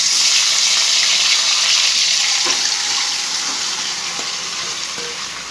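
Washed chicken pieces sizzling as they hit hot oil in a kadai: a loud hiss that starts at full strength and slowly dies down.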